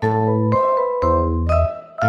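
Background music: a light melody of struck notes over a bass line, a new bass note at the start and again about a second in.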